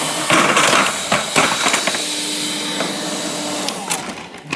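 Craftsman leaf blower running at full blast, a steady rushing air noise with a thin whine. There are a few knocks in the first second and a half, and the blower noise drops away about four seconds in.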